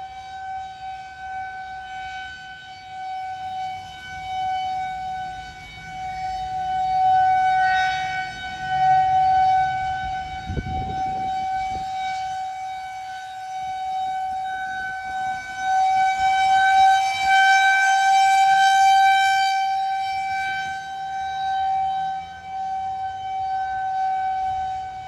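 Federal Signal 2001-130 rotating outdoor warning siren sounding a steady single tone, swelling and fading in loudness as the horn turns.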